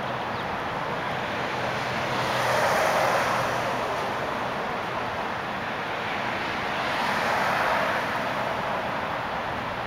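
Street traffic noise, with passing vehicles rising and fading twice, about two to three seconds in and again around seven to eight seconds in.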